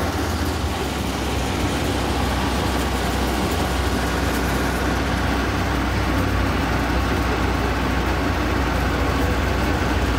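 Heavy truck engine idling steadily with a constant low rumble, typical of the recovery truck's diesel left running.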